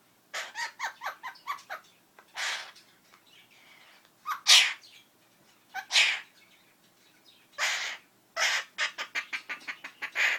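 Princess of Wales parakeet copying a person's sneezes: four short, noisy sneeze-like bursts about a second and a half apart, the second one the loudest. Each is set between quick runs of eight to ten chattering chirps, one at the start and one near the end.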